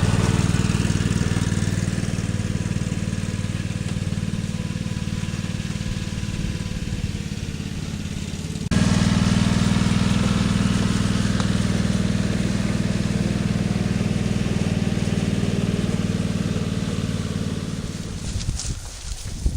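An engine running steadily with a low drone; it cuts abruptly to a louder stretch about 9 seconds in and dies away near the end.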